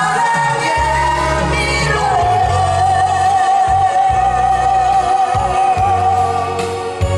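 A mixed group of men and women singing a Korean ballad together into microphones over amplified musical accompaniment with a pulsing bass. About two seconds in they hold one long note with a slight vibrato for several seconds.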